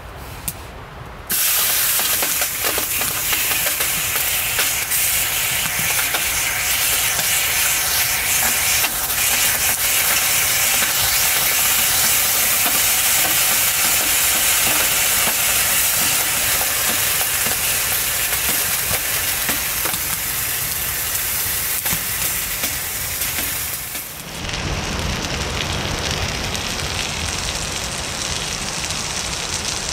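Loud steady hiss that starts abruptly about a second in, then gives way near the end to a lower, duller noise.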